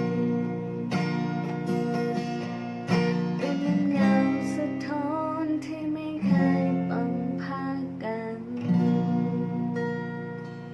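Acoustic guitar strumming slow chords. A fresh chord comes about every two to three seconds and is left to ring, with the sound fading toward the end.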